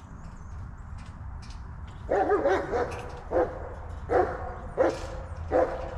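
A dog barking, a run of about six short barks starting about two seconds in, roughly one every two-thirds of a second, the first one longer than the rest.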